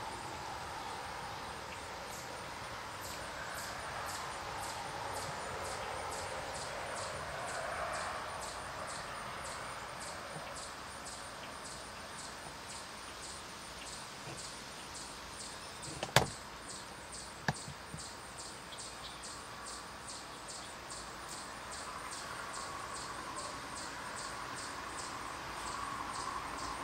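Steady outdoor background noise with a faint, regular high ticking about two to three times a second. A sharp click sounds about 16 seconds in, and a softer one a second later.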